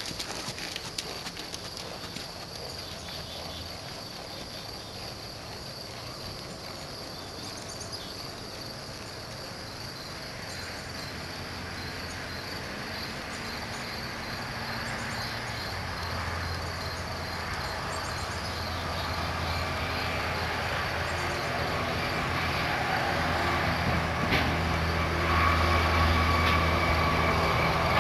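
A low, steady mechanical rumble from a distant heavy vehicle, growing gradually louder and strongest near the end, with a higher hum joining late on. A few hoofbeats of the trotting paint mare are heard at the very start.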